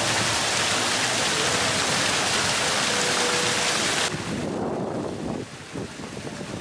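Water of Bernini's Fountain of the Four Rivers splashing into its stone basin: a steady, loud rush that cuts off suddenly about four seconds in, giving way to a quieter, uneven outdoor noise.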